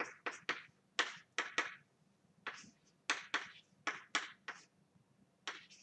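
Chalk writing on a blackboard: about a dozen short taps and scrapes in irregular groups as letters and symbols are written.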